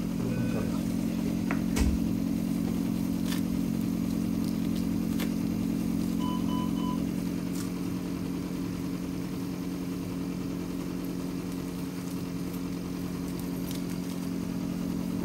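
Steady, even hum of running machinery, with three short electronic beeps about six seconds in and a few faint clicks.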